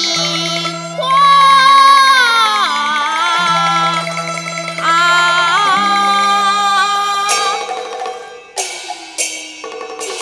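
A child's high voice singing a Cantonese opera line in long held notes that slide up and down, over Chinese orchestra accompaniment with steady low bowed-string notes. About seven seconds in the singing stops and a run of sharp opera percussion strikes takes over.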